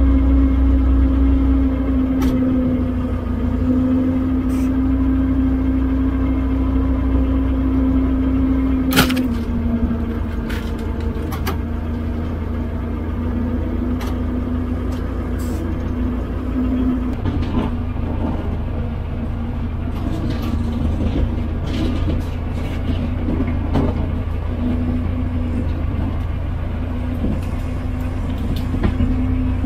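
Old 12-ton six-wheel road grader's engine running steadily under load as the machine drives and grades a dirt track, with a low rumble. A sharp clank comes about nine seconds in, and scattered knocks and rattles follow later.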